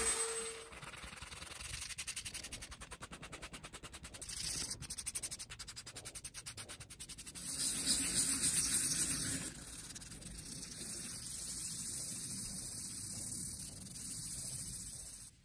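Sandpaper rubbed by hand over the carved base of a laburnum burl hollow form, in quick back-and-forth strokes at first and then steadier rubbing, which stops near the end.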